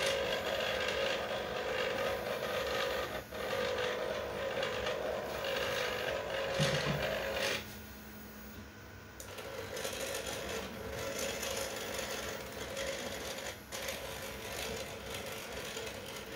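Stepper motors turning lead screws, a steady whine with several pitched tones. They stop about seven and a half seconds in and start again about two seconds later.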